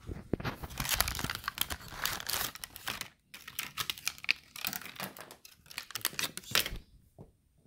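Crinkling and rustling of a small cardboard box and its plastic inner packaging being opened by hand: a dense run of irregular crackles, with a brief pause about three seconds in, stopping near the end.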